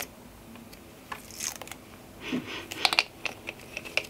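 Gift wrapping paper crinkling and rustling in short bursts, with light clicks and taps, as hands unwrap and handle a small hand cream tube.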